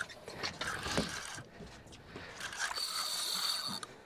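Fishing reel working against a hooked fish on a hard-bent rod: the reel's mechanism clicking and buzzing as it is cranked and the drag lets line go. About three seconds in there is a steady high whine for about a second.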